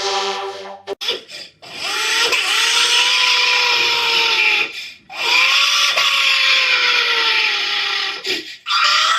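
Infant crying in long wails, two drawn-out cries with a brief break for breath between them and a third beginning near the end; a steady electronic tone fades out about a second in, before the crying begins.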